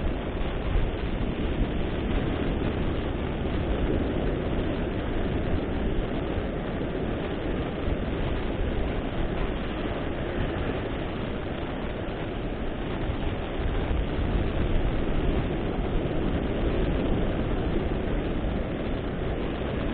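Wind buffeting the microphone over the steady wash of surf on an ocean beach, a continuous rumbling noise with no distinct events.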